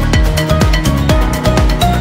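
Electronic dance music with a steady, fast beat and a short-note synth melody.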